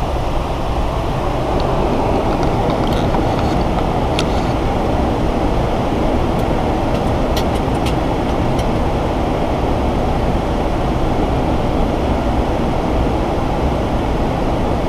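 Steady rushing cockpit noise of a Boeing 737 in flight on approach: airflow over the nose and windshield with the aircraft's running noise beneath it. A few faint light clicks.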